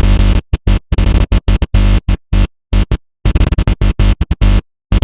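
Loud distorted static glitch over a low electrical buzz, stuttering on and off in irregular chopped bursts with abrupt dead silences between them.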